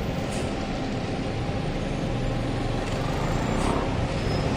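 City street traffic: motor vehicles running and passing in a steady wash of engine and road noise.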